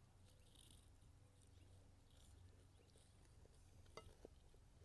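Near silence, with a few faint soft crunches of chewing and a faint click about four seconds in.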